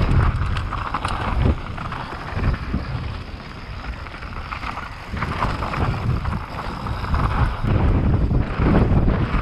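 Wind buffeting the microphone of a mountain bike riding fast downhill, over the rumble and clatter of tyres and bike on a rough bike-park trail. The noise eases for a few seconds in the middle and builds again near the end.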